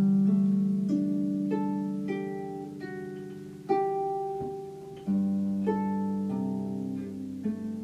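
Solo harp music played slowly: single plucked notes and small chords ring on and fade over long-sounding low bass notes.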